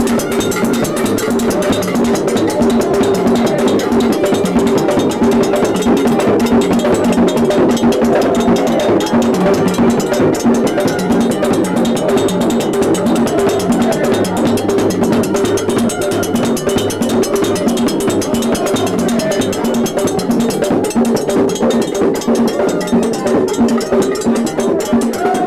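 Cuban carnival comparsa playing in the street: drums and a cowbell beating a continuous, dense rhythm, with voices mixed in.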